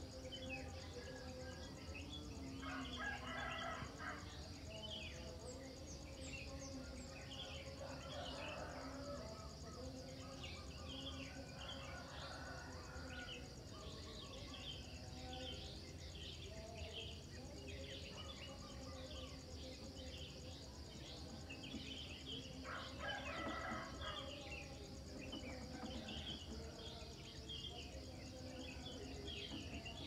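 Morning bird chorus: many small birds chirping over a steady high insect trill. A rooster crows twice, once about three seconds in and again about three-quarters of the way through.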